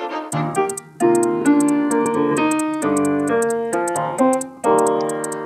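Background music: piano chords over a fast, steady ticking beat.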